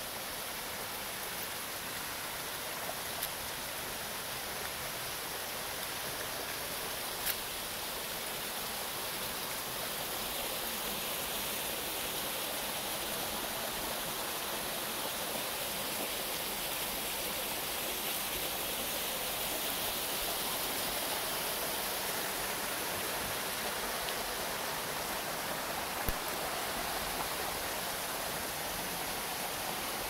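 Steady rush of a rain-swollen creek running over rocks, growing slightly louder after about ten seconds, with a few brief clicks.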